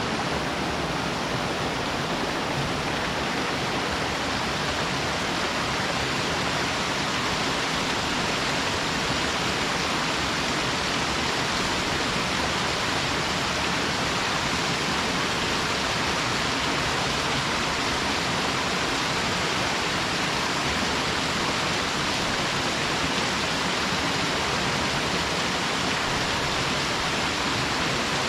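Waterfall on a mountain stream, pouring steadily as an even rush of falling water.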